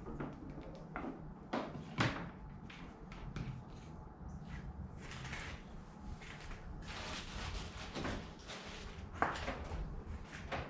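Hands at work with a hot glue gun and a piece of wood: scattered light knocks, clicks and scraping, the sharpest knocks about two seconds in and again near the end, over a low steady hum.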